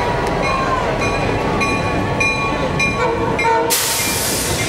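Norfolk Southern diesel locomotives and a passenger car passing slowly, a steady rumble with thin squealing tones from the wheels that glide up and down. Near the end a sudden loud hiss comes in.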